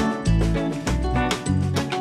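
Upbeat background music with a stepping bass line and a steady beat.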